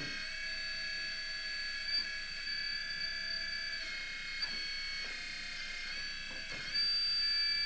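Electric hydraulic pump of a Huina Kabolite K350 RC hydraulic excavator running with a steady, quiet, high-pitched whine while the boom is raised. Its pitch shifts slightly a few times, and it gets a little louder near the end.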